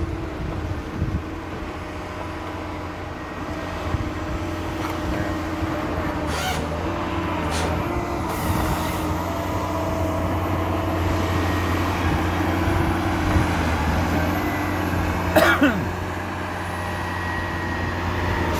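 Car driving slowly downhill, heard from inside the cabin: steady engine and road rumble with a few knocks and rattles, and a brief falling squeak about three-quarters of the way through.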